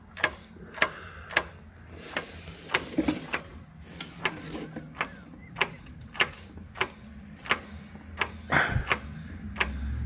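Transmission differential gears clicking and clunking in an uneven series, about one to two knocks a second, as one wheel is turned by hand; the owner takes it for a lot of backlash inside the transmission.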